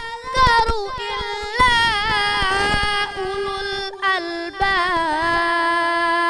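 A boy's voice amplified through a microphone, reciting the Quran in a melodic style and drawing out one long ornamented phrase. Its notes are held and waver and bend in pitch, with hardly a break.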